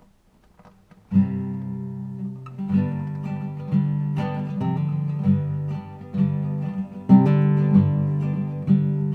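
Acoustic guitar playing chords. It comes in about a second in after a few faint clicks, with a fresh strum roughly every second.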